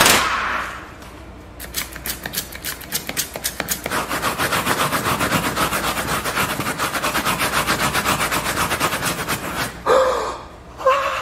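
A loud crash, then rapid, frantic scrubbing by hand on a gritty, filthy surface: many quick strokes a second that get denser and louder about four seconds in and stop shortly before the end.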